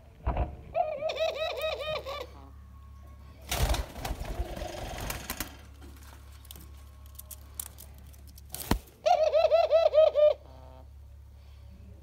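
Doves calling: two runs of about eight quick, short, arched notes, each run lasting about a second and a half, one near the start and one near the end. A burst of rustling and a sharp click come between them.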